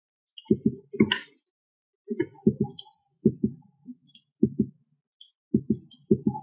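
Computer mouse button clicks picked up by the desk microphone: dull clicks in quick pairs, about seven pairs spaced roughly a second apart, as points are picked on screen.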